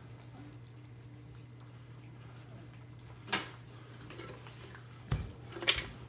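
A group of cats eating wet food from bowls on a tiled floor: faint chewing and lapping over a steady low hum, with a sharp knock about three seconds in and two more near the end.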